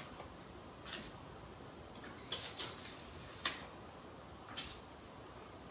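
Paper sticky notes being peeled off a flip-chart pad: a few brief, papery rips and rustles, spaced about a second apart.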